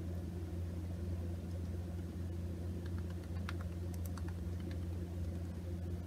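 Steady low hum, with a few soft light taps and clicks about three to four and a half seconds in as a foundation puff is patted onto the skin.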